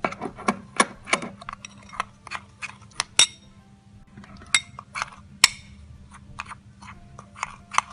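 Steel spoon stirring and scraping damp detergent powder in a glass bowl, clinking against the glass in quick, irregular strikes. Two strikes ring out louder, about three seconds and five and a half seconds in.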